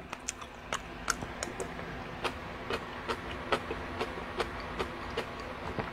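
Eating noises: a spoon tapping and scraping in a pot of chicken soup, giving scattered light clicks, one to three a second, over a low steady hum.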